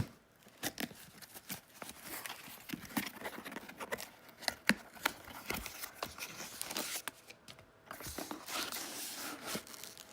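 Packaging being worked open by hand: a run of tearing, crinkling and scraping with many small sharp clicks, irregular throughout.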